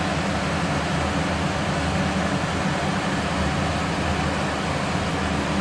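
Steady low machine hum with an even hiss over it, unchanging and without clicks or knocks.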